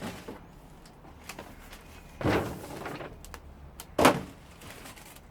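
Handling noise: a scraping slide about two seconds in, then a sharper knock about four seconds in, the louder of the two.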